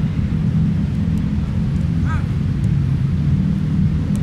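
Steady low outdoor rumble, with a few faint sharp taps of footballs being kicked in passing drills and a brief faint call about two seconds in.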